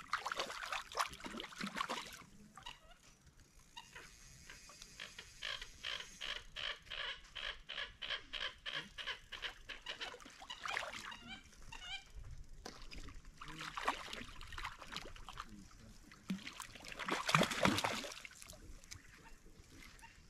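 Hooked trout splashing at the surface as it is reeled in to the shore, with a loud splash near the end as it comes into the shallows. In the middle there is a run of quick, evenly spaced clicks or calls for several seconds.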